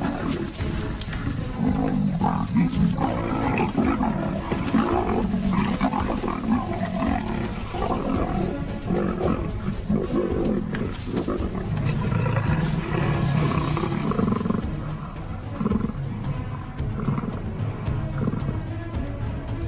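Leopards snarling and growling in a territorial fight, with background music underneath.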